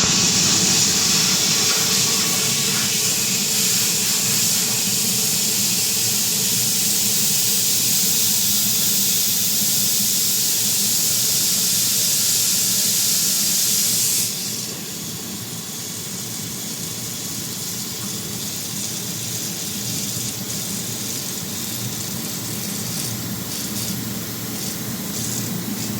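Compressor with a failed oil seal hissing loudly as pressurised gas escapes, over a low running hum; about halfway through the hiss drops suddenly to a quieter, steady leak.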